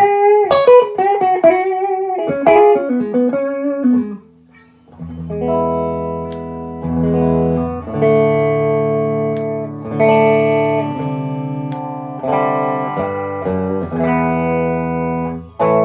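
Dax&Co. Workhorse electric guitar playing a single-note lead line with bent and wavering notes. After a brief pause about four seconds in, it moves to a run of full chords, each left to ring before the next.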